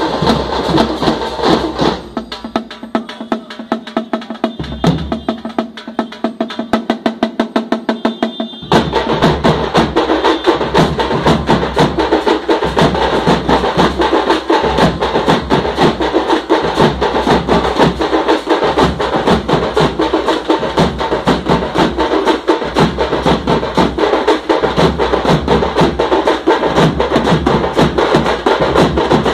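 Tamte, large stick-beaten frame drums of South India, played together by a band in a fast, dense rhythm. About two seconds in the playing thins to a lighter, quieter pattern; at about nine seconds the whole group comes back in, louder, over a low beat that recurs about once a second.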